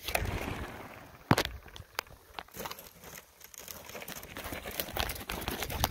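Footsteps through dry grass and brush, with a few sharp crackles.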